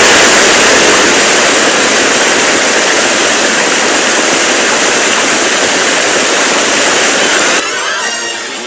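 Loud, steady rush of falling water, a cartoon waterfall sound effect that starts abruptly and cuts away near the end as music comes back in.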